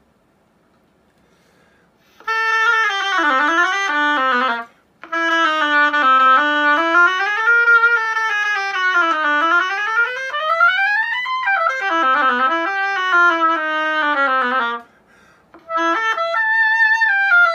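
Oboe played in quick scale-like runs that sweep down and up, with two short breaks, to test a reed. The reed seems too light for the dry air, and its sound may be a little too light.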